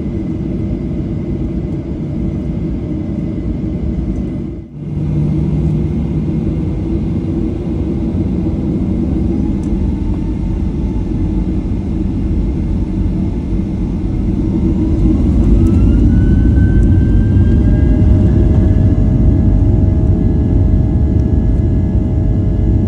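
Boeing 737 CFM56 jet engines heard from inside the cabin over the wing: a steady rumble and whir while taxiing, broken by a brief dropout about five seconds in. Past the middle a whine rises in pitch and the engines grow louder as they spool up.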